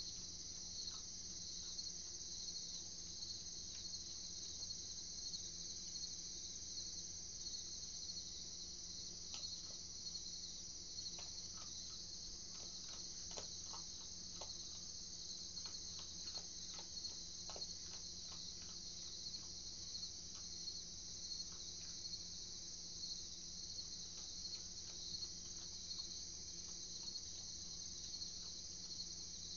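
Steady, high-pitched chorus of night insects, with a few faint clicks scattered through the middle and a low steady hum underneath.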